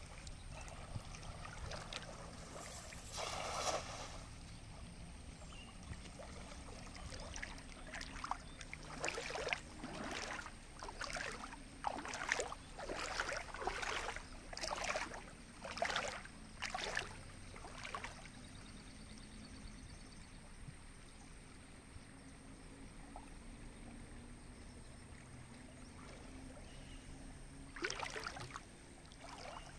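Water splashing as a man wades in a shallow river working a cast net: a splash about three seconds in as the net goes out, then a run of splashes about one a second for some ten seconds while he hauls it back, and more splashing near the end as the net is lifted from the water. A steady faint flow of water lies under it.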